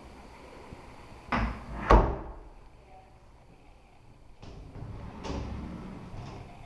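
An interior door being pushed shut: two knocks about half a second apart, the second one louder, then a few fainter scuffing knocks.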